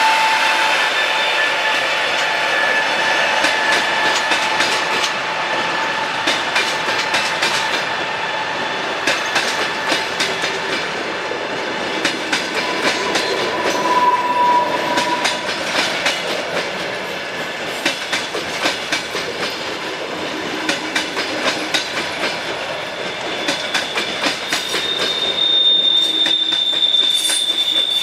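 Passenger train carriages rolling past, wheels clicking over rail joints, with steady metallic wheel squeal. A louder squeal comes about halfway through, and a higher-pitched squeal starts near the end.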